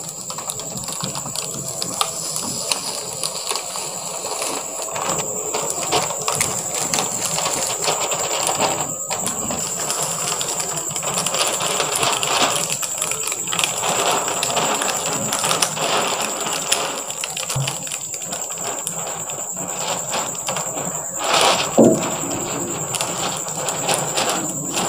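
Clear adhesive PVC transfer sheet being peeled slowly off a hot-fix rhinestone template board: a continuous crackling with many small clicks as the stones lift from the board.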